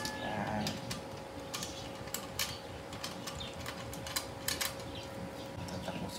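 Parts of a manual meat slicer being handled and fitted together: irregular sharp clicks and light knocks of metal pieces, over a steady faint hum.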